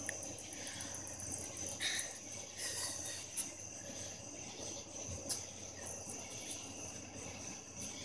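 Insects chirping steadily: an unbroken high-pitched trill with a quick, even pulsing above it, and a few brief faint clicks.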